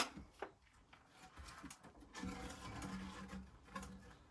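Faint knocks of a wooden frame being shifted against stonework: one sharp knock at the start and a lighter click just after. A faint low hum follows for about a second past the middle.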